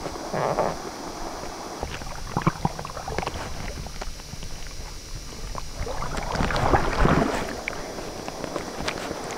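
Wind buffeting a helmet-mounted camera microphone over water rushing and spraying against a windsurf board sailing through chop. The noise comes in surges, the strongest about seven seconds in.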